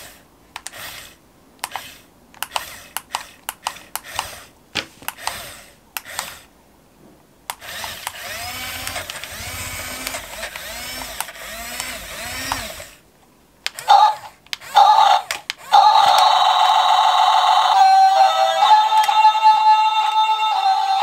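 Mofun 1026 1/24-scale RC excavator's small electric gear motors working the boom and bucket: short clicky whirs for the first few seconds, then a steady whir for about five seconds. A few loud bursts come about 14 seconds in, and from about 16 seconds music plays.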